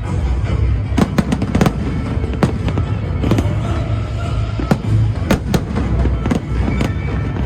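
Fireworks going off over loud music: a quick cluster of sharp bangs about a second in, then single bangs every half second or so.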